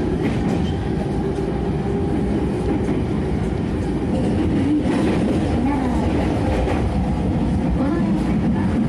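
Running sound inside a JR E231-series EMU motor car: a continuous rumble of wheels on rail with the whine of the traction inverter and motors, and some rail-joint clatter.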